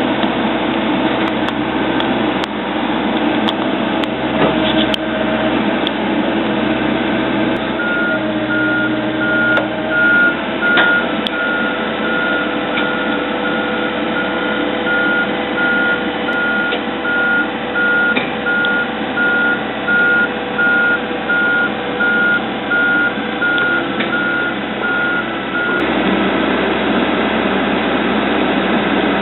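A heavy machine's backup alarm beeping evenly, one steady pitch, starting about eight seconds in and stopping a few seconds before the end, over the steady running of its diesel engine.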